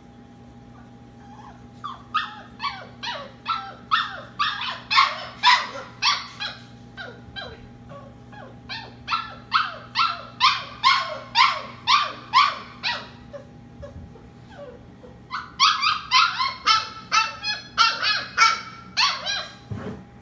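A Labradoodle puppy crying in its crate: a rapid run of short, high yelping whines, each falling in pitch, about two a second, breaking off for about two seconds before starting again. It is a puppy fussing at bedtime that has not yet settled down.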